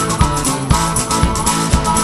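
Instrumental break in a blues-rock song: guitar over a steady drum beat.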